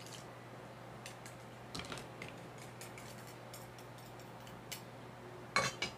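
Wire whisk and metal spoon clicking and scraping against a ceramic bowl as a thick, sticky cream cheese mixture is mashed and stirred. Faint, irregular clicks, with a louder cluster near the end.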